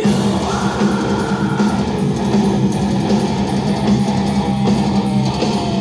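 Melodic death metal band playing live through a concert PA: distorted electric guitars and bass in a loud, continuous full-band passage, heard from the audience.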